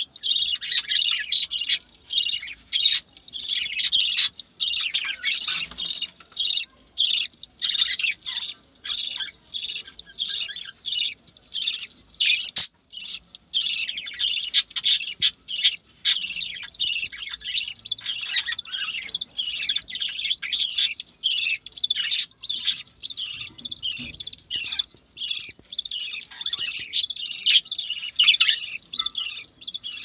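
Budgerigar chicks begging while their mother feeds them: a dense, almost continuous run of rapid, high chirps with only brief pauses.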